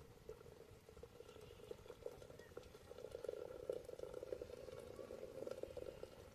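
Metal kettle heating over a small wood fire, the water simmering with a faint, rapid crackle that grows louder about halfway through.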